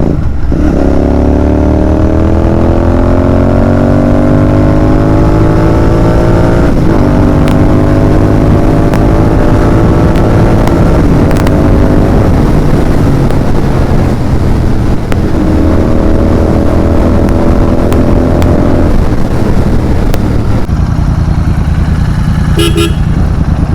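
Royal Enfield Continental GT 650's 648 cc parallel-twin engine pulling hard under acceleration: the pitch climbs, drops sharply at an upshift about seven seconds in, then climbs again before settling to a steadier drone, with heavy wind rush on the microphone. Two short horn toots sound near the end.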